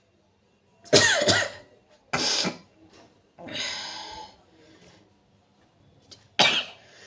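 A woman sneezing and coughing in four sudden explosive bursts, the third one longer, set off by tickling her nose with cotton buds.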